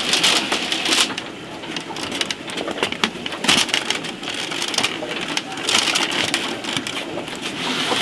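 Bamboo slats of a woven bamboo panel rattling and clattering as the panel is pushed and moved, an irregular crackle of small clicks with a few sharper knocks.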